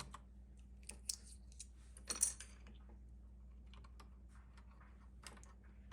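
Faint, scattered plastic clicks from a mechanical keyboard as a keycap is pulled off its Cherry MX Brown switch with a keycap puller and a replacement cap is pressed on. There is a brief louder scrape about two seconds in.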